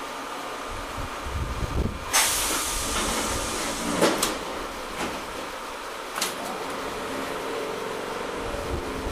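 Keihan 6000 series train's air-operated side doors closing: a loud rush of compressed-air hiss about two seconds in, then the doors thud shut about two seconds later. A shorter hiss of air follows, and near the end a faint steady hum starts as the train gets ready to pull out.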